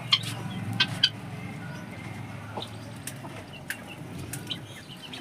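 Chickens clucking, with short sharp calls scattered throughout and the loudest three in the first second, over a steady low hum.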